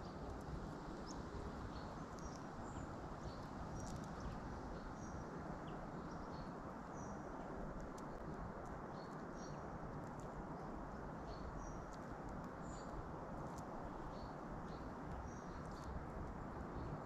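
Steady outdoor hiss and rumble with short, high chirps of small birds scattered throughout, and a few light taps from a Eurasian magpie's beak pecking scraps off the paving stones.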